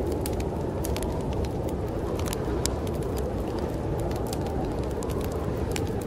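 Wood fire crackling, with frequent sharp, irregular pops, over a steady low rush of storm wind.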